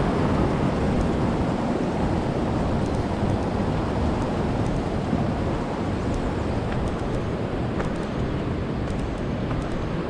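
Steady rushing of a fast creek flowing over rocks, mixed with wind buffeting the microphone.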